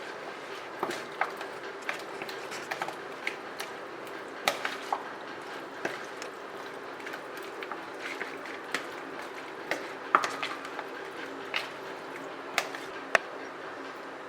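Spoon clicking and knocking against a bowl at irregular intervals while chicken marinade is stirred, over a steady low hum.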